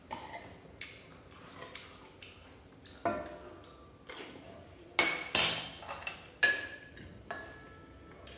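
Tableware clinking as a meal is eaten: utensils knocking against porcelain bowls and a stainless steel pot. The clicks are scattered, with a few loud ringing clinks between about five and six and a half seconds in.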